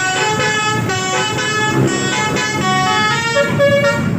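Indonesian 'telolet' bus horn, a multi-tone musical horn, playing a tune of steady notes that step to a new pitch every few tenths of a second.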